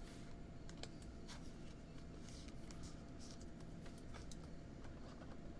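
Faint rustling swishes and a few light clicks of trading cards being handled, over a steady low hum.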